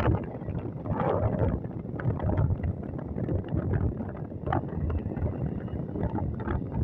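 Gusty wind buffeting the phone's microphone, a rough low rumble, with the distant jet engines of a twin-engine airliner rolling on the runway underneath.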